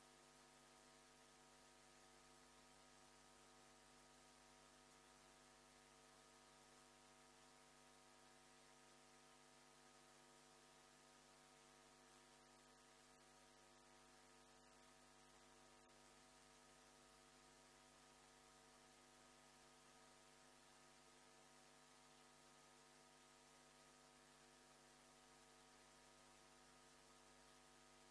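Near silence: a faint, steady electrical hum over hiss.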